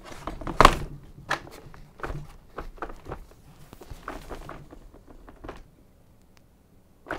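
UPPAbaby Mesa infant car seat clunking and clicking on the Vista stroller's mount as it is pushed down and rocked. The seat is still wobbly, perhaps not clicked all the way down. A loud knock comes about half a second in, then a string of smaller knocks, which stop a couple of seconds before the end.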